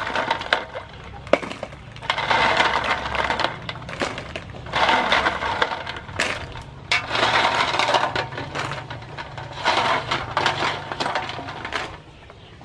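River snails being scooped by the handful out of an aluminium basin of water, their shells clattering against each other and the metal in about five bursts a couple of seconds apart.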